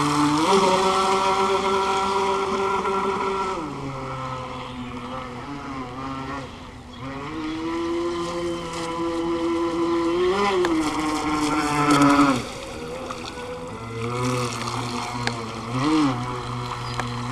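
Electric motor of a Thunder Tiger Atlantic Motor Yacht RC boat whining as the boat runs across the water. Its pitch rises and falls with the throttle: high at first, dropping about four seconds in, then climbing to a peak about twelve seconds in before dropping again, with a couple of brief blips.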